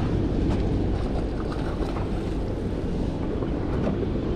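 Steady wind noise buffeting the microphone, with sea water sloshing against a small boat's hull.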